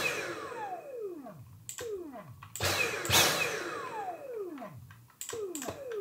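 Dyson V7 cordless handheld vacuum's motor switched on in short bursts, four times. Each burst ends in a falling whine as the high-speed motor spins down.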